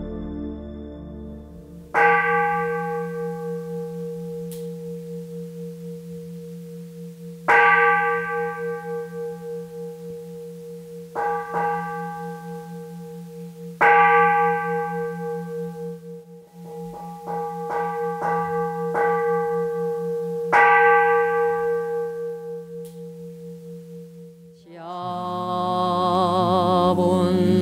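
A struck metal bell ringing out with a long decay: four loud strokes about six seconds apart, with lighter strokes between them, including a quick run of light strokes before the fourth. Near the end, chanting begins, the opening of a Buddhist service's chanted homage.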